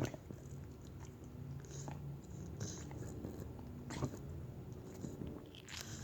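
A pet's hacking episode: one short sharp hack right at the start, then low breathing and small wet mouth clicks as the animal works its throat and mouth.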